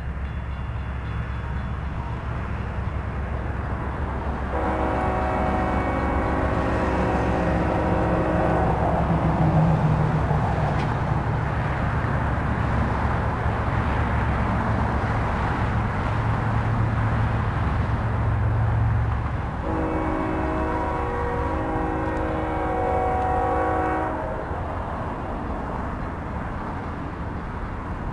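BNSF GE ES44C4 diesel locomotive sounding its multi-note air horn for the grade crossing in two long blasts of about four seconds each, the first about five seconds in and the second about twenty seconds in. Under the horn runs the steady low rumble of the locomotive's diesel engine.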